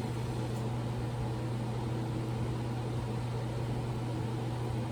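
Steady low electrical hum with a stack of overtones and a hiss beneath it, running evenly as shop background noise.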